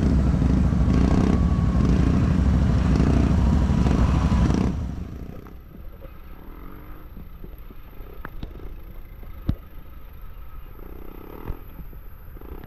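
Off-road vehicle engine running hard, then the sound drops away abruptly about five seconds in. What follows is quieter, with scattered sharp clicks and knocks.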